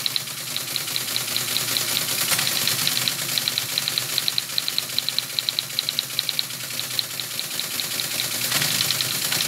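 ASR-33 Teletype printing an octal memory dump: a rapid, even clatter of its typing mechanism striking characters line after line, over the steady hum of its motor.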